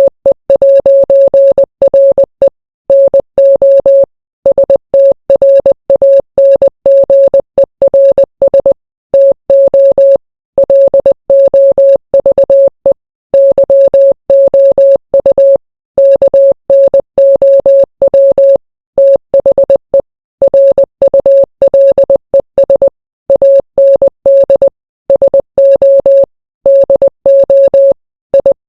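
Morse code: a single steady beep keyed on and off in short and long elements, with brief gaps inside letters and longer pauses between letters and words.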